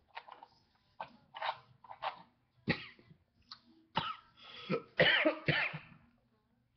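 A man coughing repeatedly: short coughs that build to a longer, strained coughing fit about five seconds in. He is choking, not from a hit of smoke.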